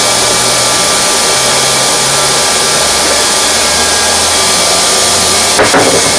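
Hand-held hot-air welding gun blowing a steady, loud rush of hot air onto TPO roofing membrane to heat-weld a seam. A brief knock comes near the end.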